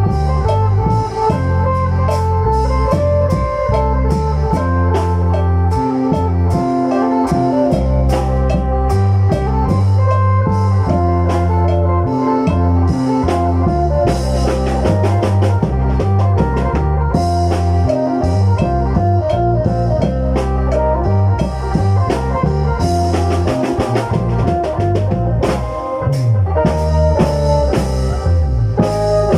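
Isan folk instrumental music: a plucked phin lute plays a lam phloen melody over drums and a low bass line.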